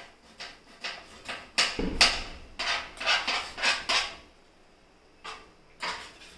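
A steel spoon clinking and scraping against a small steel bowl and the rim of an aluminium pot as ground coconut paste is scooped into the curry. A quick run of taps fills the first four seconds, with a duller knock about two seconds in, then two more taps near the end.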